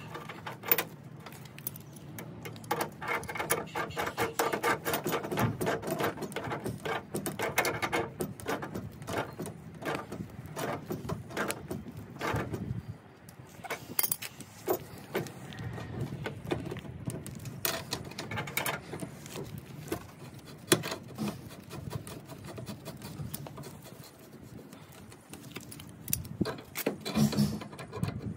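Metal clinking and scraping as threaded black gas pipe and iron fittings are handled and screwed together by hand, with a run of sharp metal clicks near the end as a pipe wrench grips and tightens the union.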